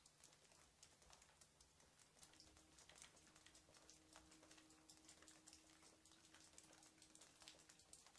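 Near silence with many faint, irregular light clicks and crackles, and a faint steady hum from about two seconds in until shortly before the end.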